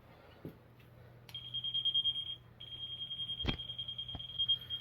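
Non-contact voltage tester pen beeping: a high, rapidly pulsing tone that starts with a click about a second in and breaks off briefly partway through. It shows the tester is sensing live voltage.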